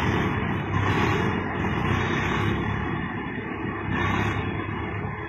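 Diesel tractor engine running hard under load, its note swelling and easing several times as the tractor works in deep mud.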